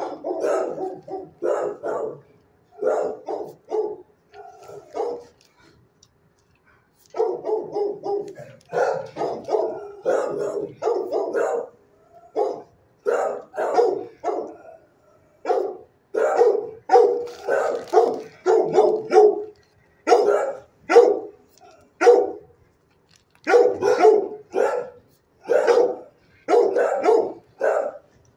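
A dog in a shelter kennel barks repeatedly, in quick runs of several barks with short breaks between them.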